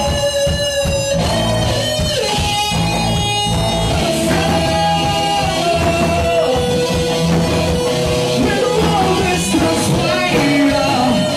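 Rock band playing live and loud: guitar, bass and drums with a singer's voice.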